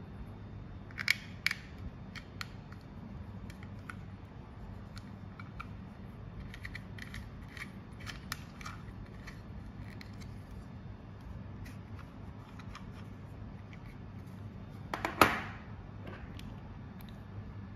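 Hard plastic parts of a camera holder clip handled and fitted together, with scattered small clicks and ticks as a metal thumbscrew is threaded into it. About 15 seconds in there is one louder clatter as the plastic holder is set down on a wooden table.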